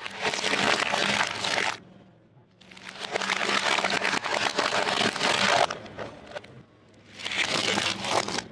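Hard plastic toys cracking and crunching under a slowly rolling car tyre, in three separate bursts: a short one, a long one in the middle, and another short one near the end.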